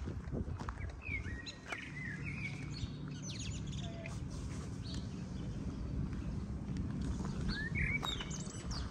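Birds chirping in two short bouts of quick high chirps, one early and one near the end, over a low steady hum.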